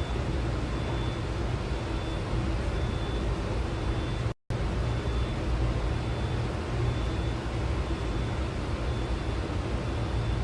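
Steady low humming background noise, with a faint high tone pulsing on and off about twice a second. It drops out completely for a moment about four seconds in.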